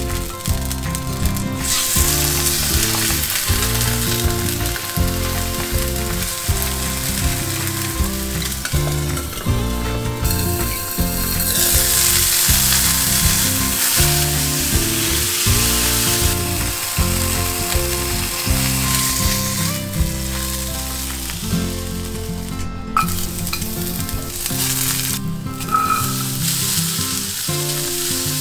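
Oil sizzling and spitting in a nonstick wok as chicken thigh pieces fry and then diced green beans are stir-fried, with a wooden spatula and chopsticks stirring and scraping. The sizzle swells loudest a little after ten seconds in and breaks off for a moment past twenty seconds, where the cooking steps are cut together.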